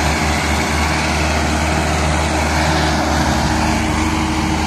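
Two Mahindra 575 tractors' four-cylinder diesel engines running steadily under heavy load, one pulling the other and its sand-laden trailer by a chain.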